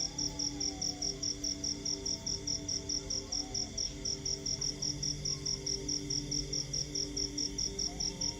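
Crickets chirping in a steady high pulse, about four to five chirps a second, over low steady droning tones with a few faint gliding notes.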